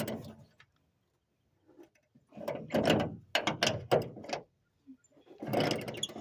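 Hand ratchet wrench clicking in two spells as a bolt is turned, starting a couple of seconds in after a pause.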